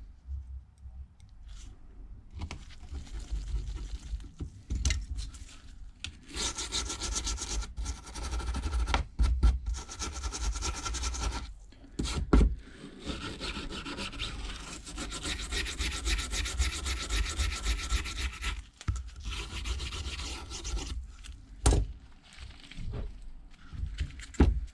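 Scraping and rubbing of hand tools working on a phone's frame in long stretches, with a few sharp clicks in between.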